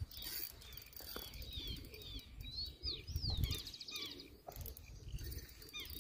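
Wild birds calling on a riverbank: repeated short, downward-sliding chirps from several birds, with a quick trill about three and a half seconds in, over a low rumble.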